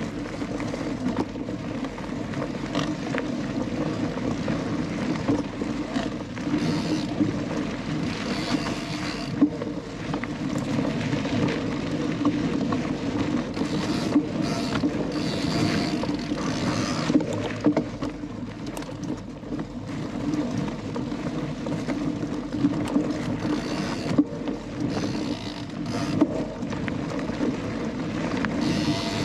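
Onboard sound of a Canyon Lux Trail mountain bike ridden along a dirt singletrack: a steady rumble of tyres and wind, with scattered knocks and rattles from the bike over bumps and a few brief spells of higher hiss.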